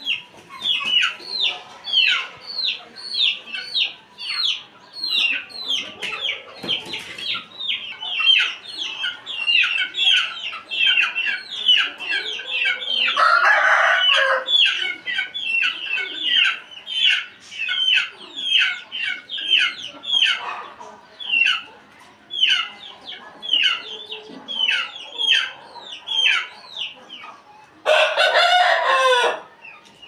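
Aseel rooster crowing twice, once about 13 seconds in and again near the end. Between the crows, short high falling chirps repeat about twice a second.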